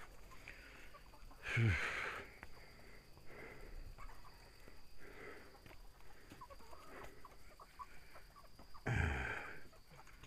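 Domestic hens clucking softly and intermittently, with two louder, low calls that fall in pitch, one about a second and a half in and one near the end.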